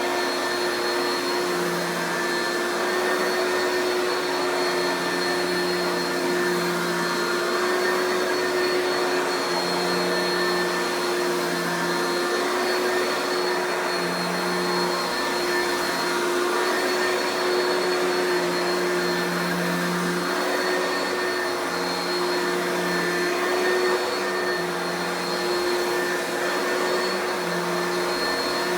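Oreck XL2 Ultra lightweight upright vacuum running steadily with a constant whine. A lower hum swells and fades every second or two.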